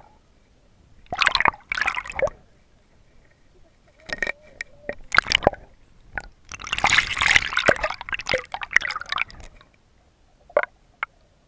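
Canal water splashing and sloshing around a submerged camera in irregular bursts, the longest about seven to nine seconds in, then two short clicks near the end.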